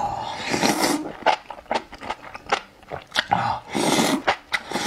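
A person slurping a mouthful of enoki mushrooms coated in sesame sauce and chewing with wet clicks and smacks. There are two long slurps, one about half a second in and another near four seconds.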